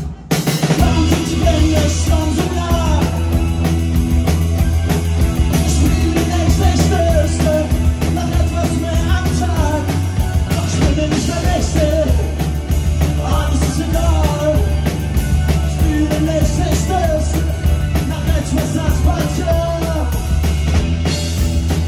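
Live rock band playing: electric guitar, electric bass and drum kit, with a brief break just after the start before the band comes back in.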